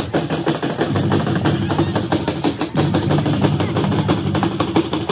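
Music with a fast, busy drum beat over a bass line.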